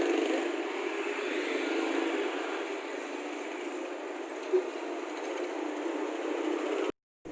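Steady traffic-like street noise, with one short sharp sound about four and a half seconds in; it cuts off abruptly to silence just before the end.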